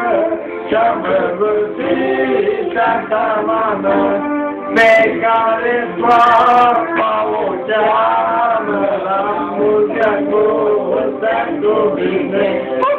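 Young men singing a Romanian song together, their voices carrying on without a break.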